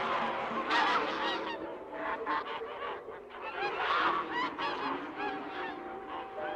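A flock of geese honking: many short calls overlapping, swelling about a second in and again around four seconds in.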